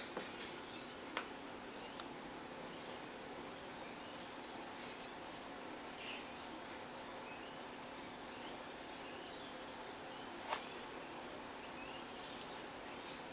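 Quiet steady background hiss with a constant high whine and a low hum, faint scattered chirps, and two sharp clicks: a small one about a second in and a louder one near the end.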